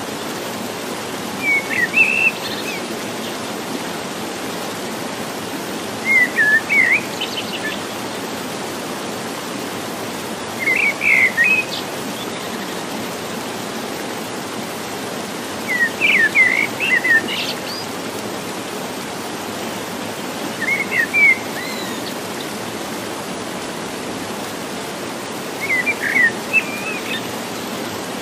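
Steady rushing of a woodland stream's small cascade, with a songbird singing short high phrases of a few chirps about every five seconds, six times.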